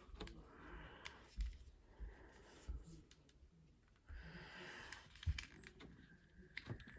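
Faint, scattered clicks and light knocks of plastic as the Xbox media remote's case is pried at; the shell is not coming apart.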